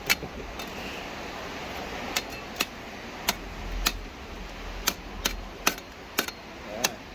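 Irregular sharp strikes of a metal tool on rock, about nine in a row at uneven gaps of half a second to a second, as bedrock cracks are worked while crevicing for gold, over a steady hiss.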